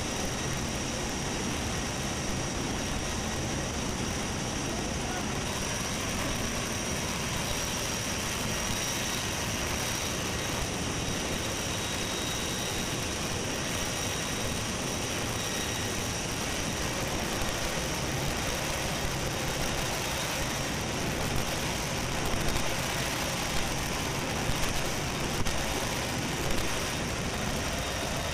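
Steady roar of wind and jet engines through the open troop door of a C-17 Globemaster in flight, with a thin high whine held throughout. A few short, louder knocks come in the last few seconds.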